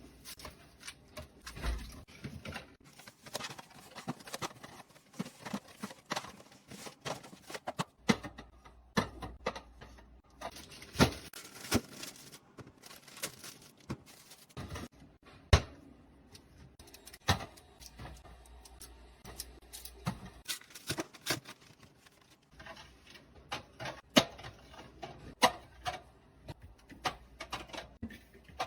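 Groceries and containers being handled and set down in a fridge: irregular clicks, taps and knocks, a few sharper than the rest, with no steady sound beneath.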